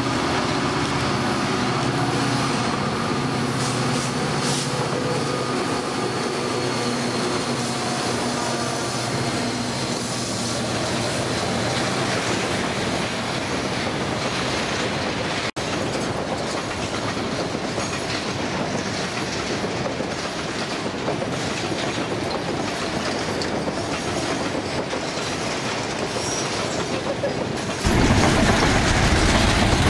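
Diesel freight locomotives run past with a steady engine drone, then a long string of loaded hopper cars rolls by, wheels clacking and squealing on the curved track. Near the end a louder, steady rushing noise suddenly takes over.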